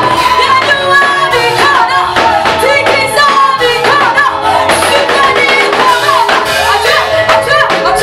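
A praise team of several women and men singing a Swahili gospel praise song into microphones, over instrumental accompaniment with a steady beat.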